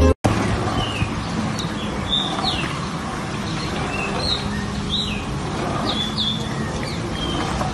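Small birds chirping in short, quick, falling notes, repeated irregularly over a steady background hiss.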